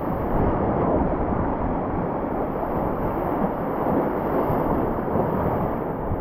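Steady rushing of whitewater in river rapids, a dense even noise with no let-up.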